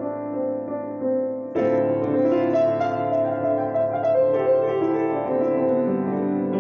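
Grand piano played solo: a soft passage of held notes, then a fuller, louder chord comes in about a second and a half in, with notes stepping downward later and a low bass note held near the end.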